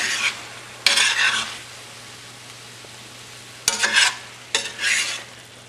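A spoon stirring moist potato and eggplant curry in a stainless steel pot: three short scraping strokes, about a second in and twice near the end, each starting with a click of the spoon against the pot.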